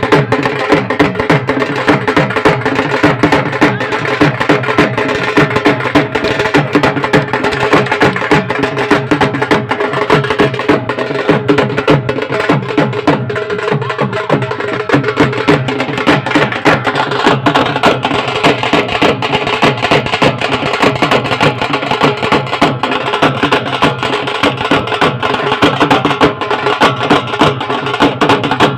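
Diwari folk dance music: a dhol drum beaten fast and without a break, with sharp clacks of wooden lathi sticks, over a steady held tone.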